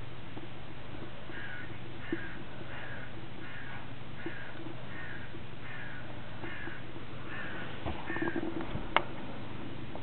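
A bird calling over and over, about two calls a second for several seconds, in a snowy garden. A few clicks follow near the end, one of them sharp.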